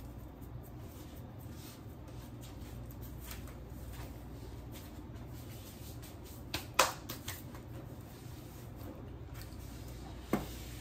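Quiet kitchen handling sounds over a low room hum: faint light ticks and rustles, a sharp click about seven seconds in with a few smaller clicks around it, and a single knock near the end.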